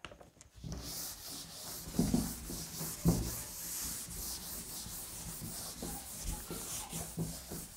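Pen scratching across paper in irregular strokes, with a couple of soft knocks about two and three seconds in.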